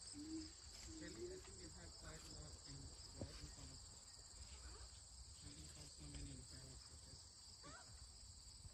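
Faint, steady, high-pitched insect chorus from the surrounding grass and bushes, running on without a break.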